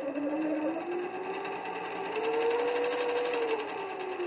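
MicroLux 7x16 variable-speed mini lathe running, its motor whine rising in pitch as the speed knob is turned up, holding for about a second, then falling again near the end as the speed is turned back down.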